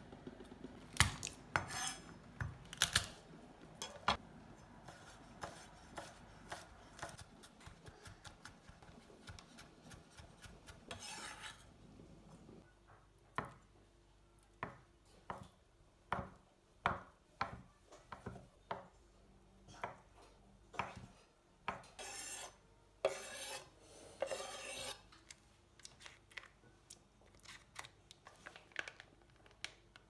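Kitchen knife slicing boiled eggs on a wooden cutting board: a steady series of short knocks as the blade meets the board, with a few longer scraping sounds in between.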